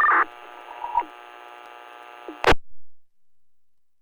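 Baofeng UV-5R scanner receiving fire-department radio. It opens with a brief two-tone data burst as a transmission keys off, then the steady hiss of the open channel. About two and a half seconds in comes a sharp click, and the squelch closes to silence.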